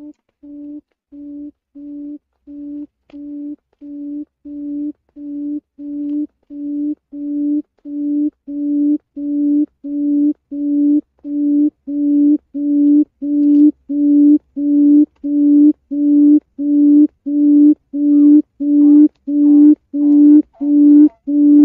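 Quail call used as a trapping lure: a long series of low, even hoots, about one and a half a second, growing steadily louder.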